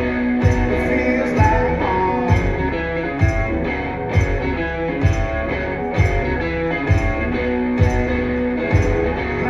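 Live band playing a song's instrumental intro: guitar over a steady beat that falls about once a second.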